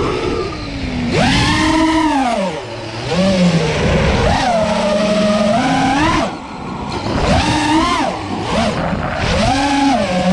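FPV quadcopter's brushless motors and propellers whining, heard from the camera on board. The pitch swoops up and down again and again as the throttle is punched and cut, with brief drops in level on the cuts.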